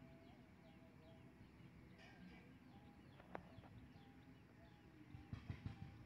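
Faint outdoor ambience with distant birds calling in short chirps. There is a single sharp click a little past the middle and a few low bumps near the end.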